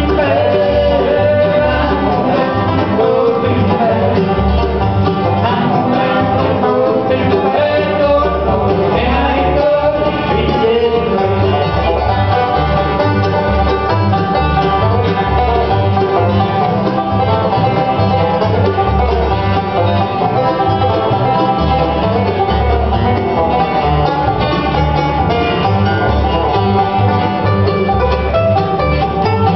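A live bluegrass band playing: five-string banjo, mandolin, acoustic guitar and upright bass, with the bass plucking a steady beat under the fast picking.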